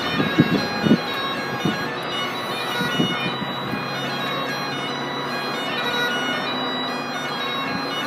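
Great Highland bagpipe playing a tune: the steady drones sound under the chanter's melody, with a few brief low bumps in the first second.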